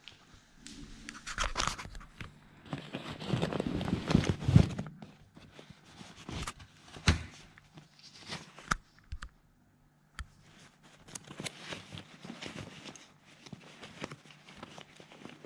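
A full paper vacuum cleaner dust bag being handled: irregular crinkling and rustling with several sharp clicks and knocks, loudest about three to five seconds in, with a short pause about ten seconds in.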